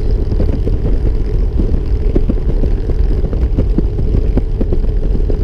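Harley-Davidson Ultra Limited touring motorcycle riding at road speed: steady engine and road noise mixed with wind buffeting the open-backed GoPro.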